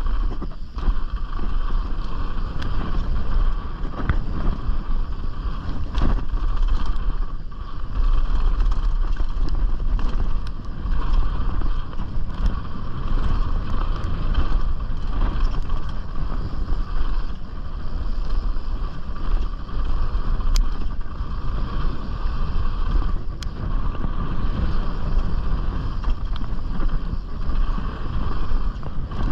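Riding noise of a Canyon Strive enduro mountain bike on a downhill trail: wind buffeting the chest-mounted camera's microphone and tyres rolling over dirt, with scattered clicks and knocks as the bike goes over bumps.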